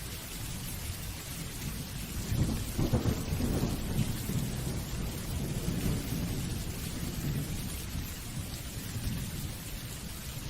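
Steady rain falling, with a roll of thunder that rumbles up about two seconds in, is loudest around three seconds and slowly dies away.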